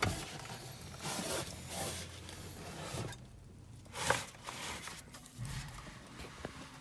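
Rustling and light clicks of handling: a car audio head unit being picked up and turned over, with a few soft swishes and small knocks.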